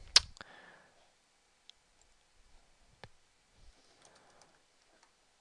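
Computer mouse and keyboard: one sharp mouse click just after the start, then a few faint, scattered key taps as a word is typed into a search box.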